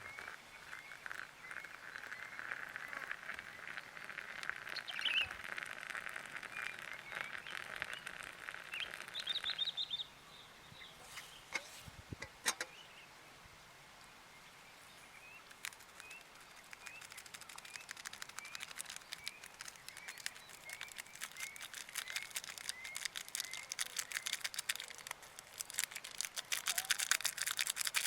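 Outdoor animal chorus: short rising chirps repeat about once a second over a dense pulsing chorus. The chorus breaks off about ten seconds in and returns as a rapid ticking that grows toward the end.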